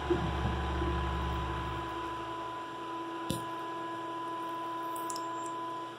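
Ridgid shop vacuum running steadily through a cyclone dust separator, a constant whine over a hiss of airflow. A deeper rumble dies away over the first two seconds or so, and there is a single sharp click about three seconds in.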